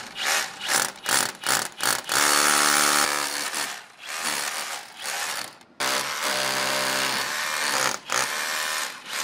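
Hand-held power drill boring into old brick with a long, thin masonry bit, drilling the first small hole. A few short trigger bursts in the first two seconds, then longer runs of drilling with brief stops between.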